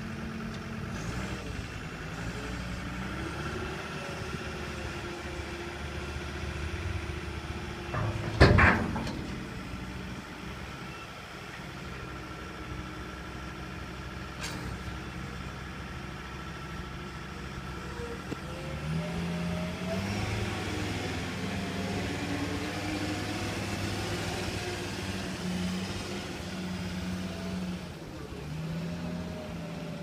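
A John Deere 304J compact wheel loader's diesel engine running, its note rising and falling as the machine works and drives. A sudden loud burst of noise, the loudest moment, comes about eight seconds in, with a sharp click a few seconds later.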